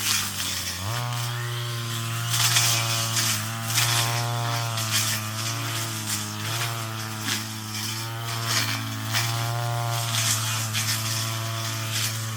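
Two-stroke brush cutter engine running, stepping up in pitch about a second in. Through the rest of the clip there are repeated swishes about once a second as the cutting head goes through weeds, each with a brief dip in engine pitch under the load.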